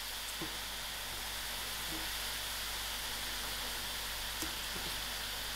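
Methi leaves and cubed potatoes sizzling steadily in hot oil in a pot, with one faint click about four and a half seconds in.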